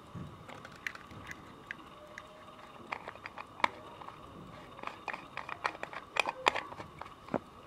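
Irregular sharp clicks and light scraping of a fingernail and fingers working at the metal case of a Burlington pocket watch, sparse at first and thicker in the second half, over a faint steady hum.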